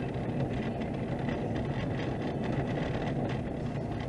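A vehicle driving on a gravel road, heard from inside the cab: a steady engine hum and tyre noise on the gravel, with faint ticks of stones under the tyres.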